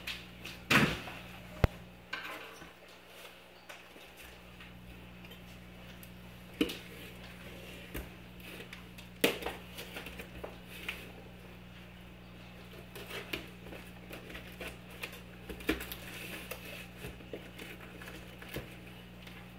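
A cardboard shipping box handled on a wooden table: scattered knocks as it is set down and turned over, then a small blade scratching and cutting along the packing tape, with a steady low hum throughout.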